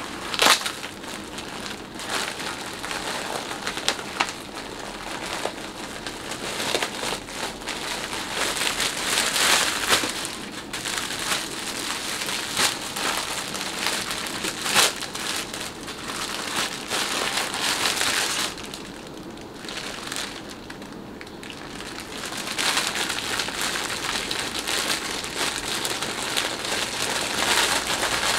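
Plastic wrapping crinkling and rustling as gloved hands unwrap clothing, with many small crackles, going quieter for a few seconds about two-thirds of the way through.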